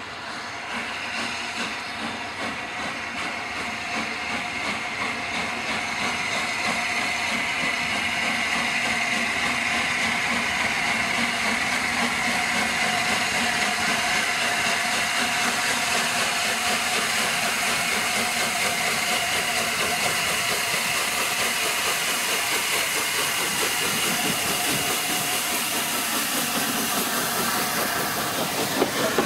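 Peppercorn A1 Pacific steam locomotive 60163 Tornado drawing near with a steady hiss of steam, growing louder over the first several seconds and then holding steady.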